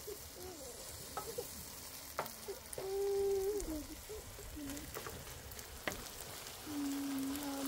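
Onions and a crumbly filling sizzling in a frying pan on a gas camping stove while a wooden spoon stirs them, with a few sharp taps of the spoon on the pan. Two short steady-pitched calls sound in the background, one about three seconds in and one near the end.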